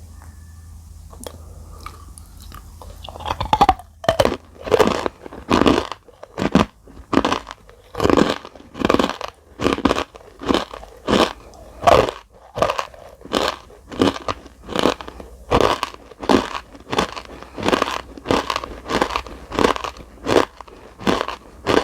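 Close-miked chewing of crunchy edible clay (Nakumatt clay): a bite, then steady crunching, about three chews every two seconds, starting a few seconds in.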